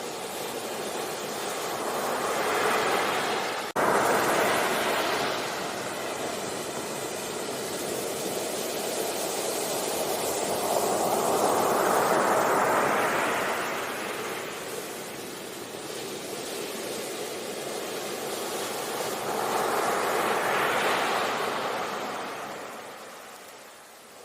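Sea waves breaking and washing up on a shore, the surf rising and falling in broad surges several seconds apart, with a sudden brief dropout about four seconds in.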